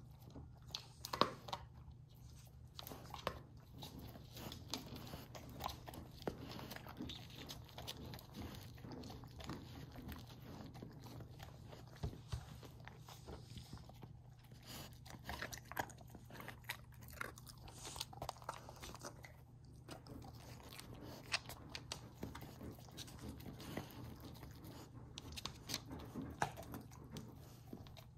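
Great Pyrenees puppy crunching and licking bone crumbs off a hardwood floor: faint, irregular crunches and clicks, over a steady low hum.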